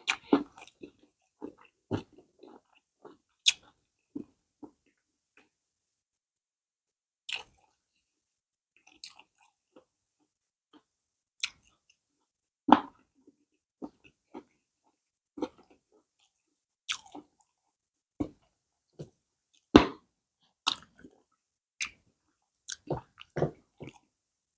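A person chewing and smacking while eating pounded yam with banga soup: short wet mouth clicks and smacks at irregular intervals, with brief pauses between.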